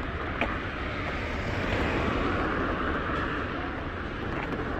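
A car driving past close by on a paved street: its engine and tyre noise swell, are loudest about two seconds in, then fade, over a steady hum of street traffic.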